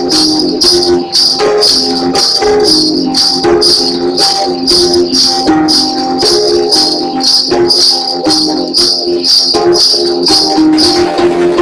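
Background music: a shaker keeping an even beat, about three strokes a second, over a slow melody of held notes; the shaker stops just before the end.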